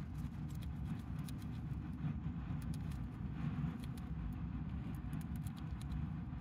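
Dwarf hamster nibbling a cabbage leaf: quick, irregular tiny crunching clicks over a steady low rumble.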